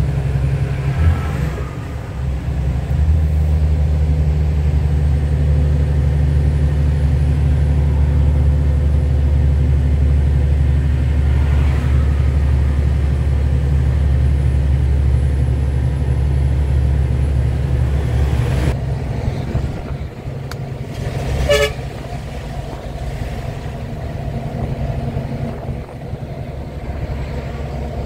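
FAW JH6 truck's diesel engine and road noise as a steady low drone, dropping in level about two-thirds of the way through. A short horn toot sounds a few seconds after the drop.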